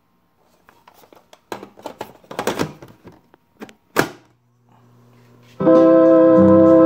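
An 8-track tape cartridge slid into an Elgin solid-state 8-track player with scraping and rattling, seating with one sharp clunk about four seconds in. A faint hum follows, then organ music from the cartridge starts loud from the player's speaker about a second and a half later.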